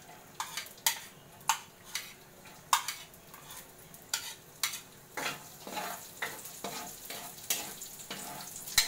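Chopped garlic sizzling in hot oil in a metal wok while a plastic spatula stirs it, scraping and knocking against the pan in irregular sharp clicks. The loudest click comes near the end.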